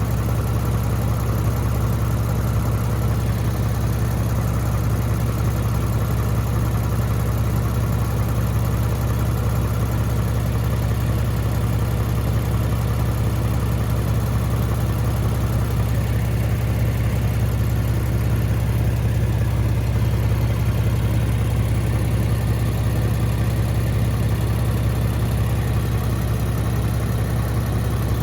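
Lexus GS350's 3.5-litre V6 idling steadily, its cracked passenger-side exhaust pipe freshly patched with exhaust tape and a clamp.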